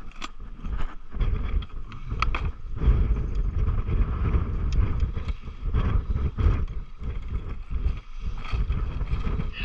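Wind buffeting the microphone in gusts, with scattered clicks and rattles as a plastic tackle box is unlatched and opened and the spoons inside are handled.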